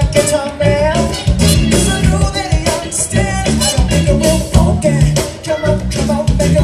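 Live funk band playing with singing: electric guitar, drum kit and keyboards over a steady beat.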